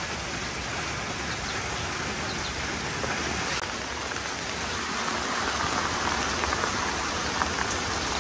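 Steady rain falling, an even hiss with a few faint single drops.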